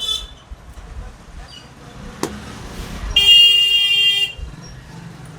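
A vehicle horn sounds once, a steady honk of a little over a second about three seconds in, over a low street rumble. A single sharp click comes about a second before it.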